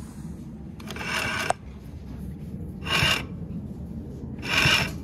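Consew 339RB-4 two-needle walking foot industrial sewing machine stitching heavy layered fabric in three short runs, each with a rasping, scraping noise over a steady low hum. The scrape is the noise traced to a pulley rubbing against a neighbouring part, which needs adjusting.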